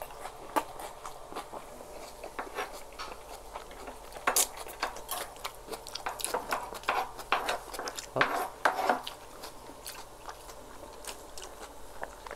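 Two people chewing and biting mouthfuls of shawarma rice, a steady run of wet mouth clicks and smacks, with spoons and forks scraping and clicking against the food. A few sharper smacks stand out about four seconds in and again about eight seconds in.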